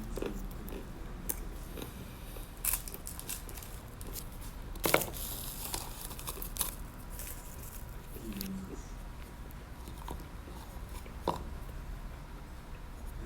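A person eating close to the microphone: a few crisp bites and crunches with quieter chewing between them, the loudest crunch about five seconds in.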